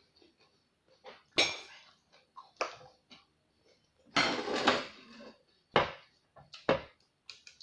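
Several separate sharp clinks and knocks of dishes and eating utensils during a meal, with a longer clattering burst near the middle.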